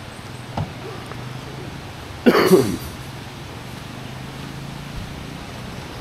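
A small engine running steadily in the background. About two seconds in comes a brief loud voice sound, a cough or call, and a short knock falls just after half a second.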